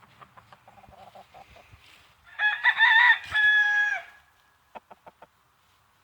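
Rooster crowing once, a loud crow of nearly two seconds held on a steady pitch and ending in a drawn-out note, after a run of soft low clucks; a few short clicks follow near the end.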